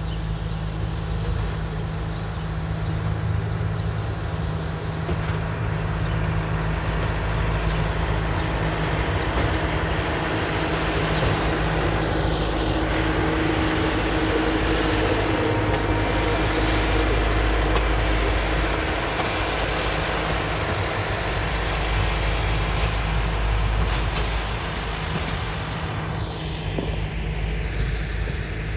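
Small rail-mounted track maintenance machine running its engine as it rolls along the rails and passes by, loudest about halfway through, then fading. A few sharp clicks are heard along the way.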